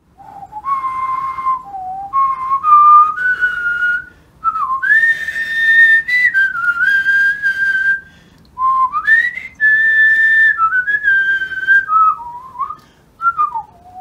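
A person whistling a slow tune. It moves in held notes joined by slides, rising to long high notes about five and ten seconds in and dropping lower near the end.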